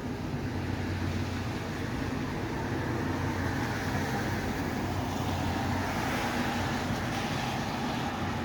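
Steady vehicle noise: a low hum under a hiss of road or traffic noise that swells a little in the middle.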